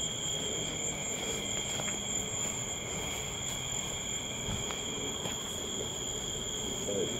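Night insect chorus: crickets trilling steadily in several unbroken high tones.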